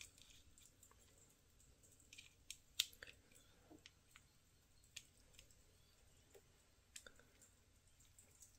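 Faint, scattered clicks and small metal taps as the end of a fitted steel watch bracelet is worked into a Samsung Galaxy Watch 5's lugs, the sharpest about three seconds in.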